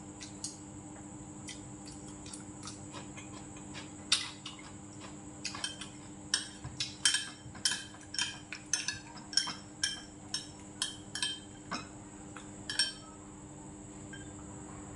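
Chopsticks and a spoon clinking and scraping against a ceramic bowl, a few clicks at first, then a quick run of clinks from about five seconds in until near the end, over a faint steady hum.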